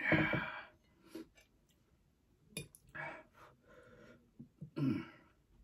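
A person eating fire-hot spicy noodles: a loud hissing breath out against the heat at the start, then a string of short slurping and chewing noises, with another strong slurp near the end.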